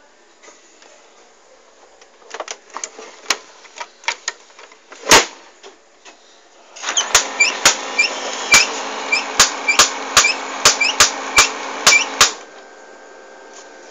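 Brother 8060 laser printer mechanism: a few scattered clicks and one loud knock, then it runs for about five seconds with sharp clicks about twice a second before stopping abruptly.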